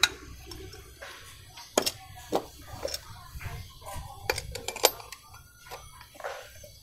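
Sharp metal clinks and knocks, about half a dozen at irregular intervals, as spanners and an aluminium scooter crankcase with its crankshaft are handled and set down.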